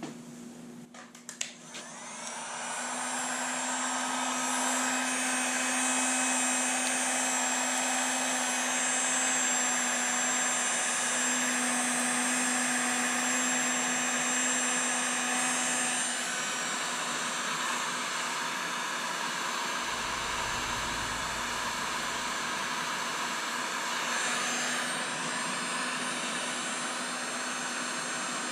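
Electric heat gun running, its fan blowing steadily with a faint motor whine, shrinking heat-shrink tubing over an extension-cord splice. It comes on about two seconds in, and its sound drops slightly in level about halfway through.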